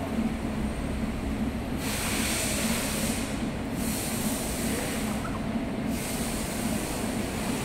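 A tissue rubbing back and forth over the bare glass of an LCD panel, wiping off residue left after the polarizer film is removed: three long hissing strokes with short pauses between them, starting about two seconds in, over a steady low hum.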